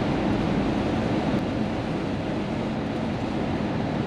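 Steady rumble and hiss inside the cab of a large truck driving in heavy rain: engine, tyres on the wet road and rain on the cab mixed together.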